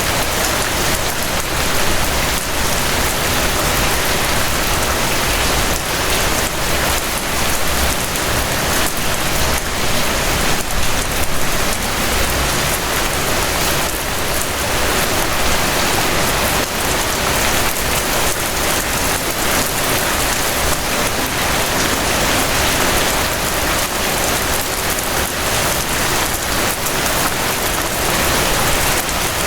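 Steady rain falling, a dense even hiss of many drops hitting surfaces.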